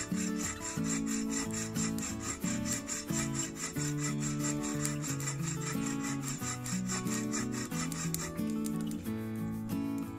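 Trailblazer folding buck saw with a Swedish steel blade cutting through a wooden pole in quick, even back-and-forth strokes. The strokes stop about eight seconds in. Background music plays under it.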